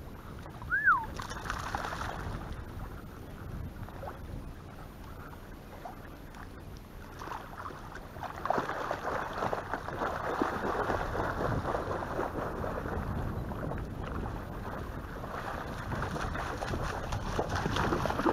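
Water splashing and sloshing as a spaniel swims in toward the bank, fuller and denser in the second half as it reaches the shallows and climbs out, with wind rumbling on the microphone. About a second in, a single short whistle falls in pitch.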